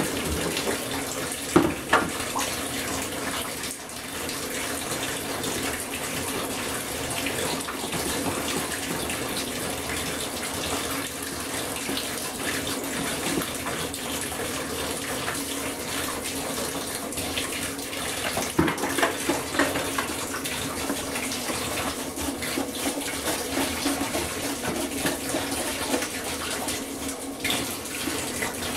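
Water running steadily into a bathtub, with a toothbrush scrubbing wet plastic and a few sharp knocks of the plastic toy against the tub.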